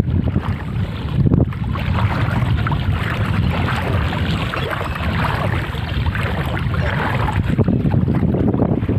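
Legs wading through deep floodwater, the water sloshing and swishing with each stride, with wind buffeting the microphone.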